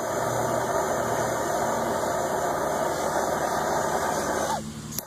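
Handheld gas torch burning with a steady hiss as its blue flame is played over a PVC knife sheath to scorch and colour it. The hiss stops suddenly about four and a half seconds in.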